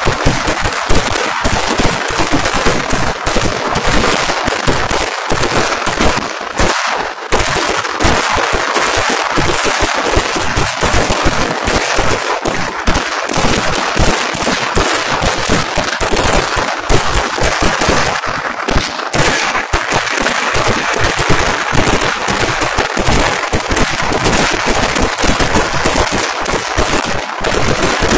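Pooram vedikettu fireworks firing as an unbroken rapid barrage, the bangs and cracks so close together that they run into one another with no pause.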